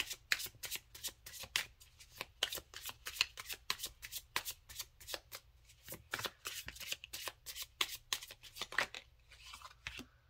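Tarot deck being shuffled by hand: a fast run of sharp card snaps, several a second, that stops shortly before the end.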